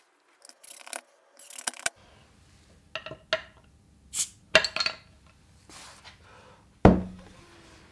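A glass beer bottle being opened on a wall-mounted metal bottle opener: a run of sharp glass-and-metal clinks and a clatter as the cap comes off and drops. A loud hollow knock with a short ring comes near the end.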